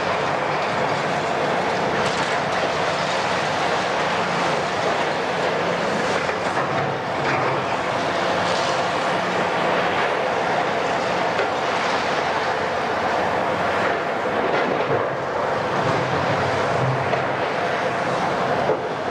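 Cat 352 hydraulic excavator working, its 12.5-litre Cat C13 diesel engine running steadily under load with a constant droning tone, and a few faint clanks from the machine.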